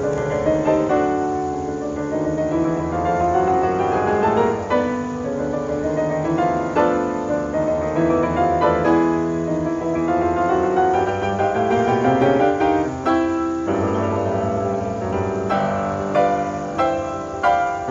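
Background music: piano playing a continuous run of notes.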